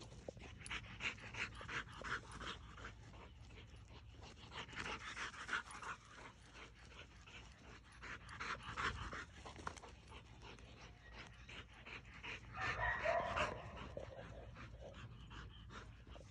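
A young dog panting rapidly and hard from exertion, with louder stretches a few times.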